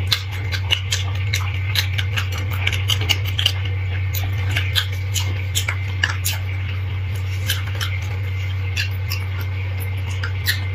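Metal spoon scraping and tapping inside a cooked marrow bone as the marrow is dug out: irregular small clicks and scrapes, over a steady low hum.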